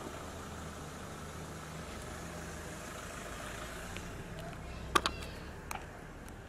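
Car engine running low and steady as a vehicle pulls away, with two sharp knocks close together about five seconds in and a lighter one just after.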